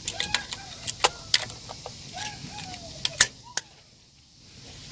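Sharp metallic clicks and clinks of locking pliers working a spring-type radiator hose clamp, a dozen or so irregular clicks over the first three and a half seconds, then quieter.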